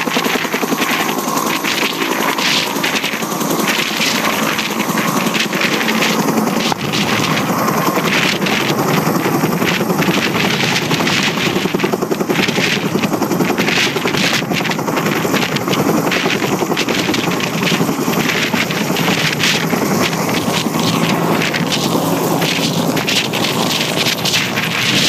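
Bell UH-1 Huey helicopter taking off and climbing overhead, its two-bladed main rotor beating loudly in a fast, even chop with the engine running underneath.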